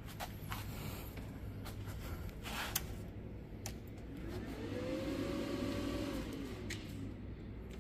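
A few light clicks and knocks from handling the charger clamps on a 12-volt motorcycle battery and switching on the charger. Then a motor-like whir rises in pitch about four seconds in, holds steady for a second or so and winds back down, over a low steady hum.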